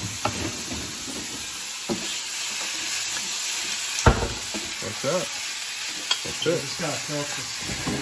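Steak pieces and salsa sizzling in a stainless steel skillet while a wooden spatula stirs and scrapes them around the pan. A single sharp knock about four seconds in is the loudest sound.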